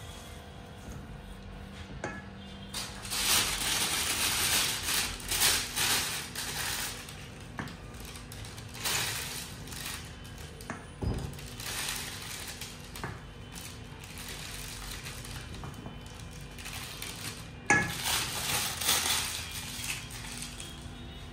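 Kitchen utensils and dishes scraping and clinking in irregular bursts, with a few sharp knocks in between.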